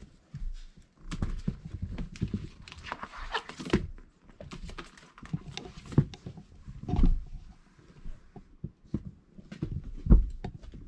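Four-week-old Irish Setter puppies scrambling about a whelping pen: irregular knocks, thumps and scuffling of paws and bodies on bedding and the pen's walls, with a sharper thump about ten seconds in.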